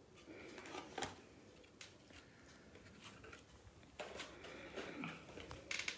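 Light handling noises on a table: scattered small taps and rustles as craft items are moved and set down, with a sharper rustle just before the end.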